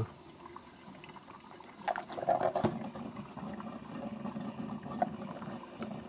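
Drip coffee maker brewing: hot water spraying and dripping from the spray head onto coffee grounds in a brown paper basket filter, a soft steady watery hiss that gets briefly louder about two seconds in.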